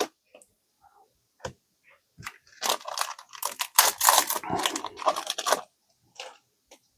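Foil trading-card booster pack being torn open and crinkled in the hands: a few small clicks, then about three seconds of dense crackling, then a couple of light clicks near the end.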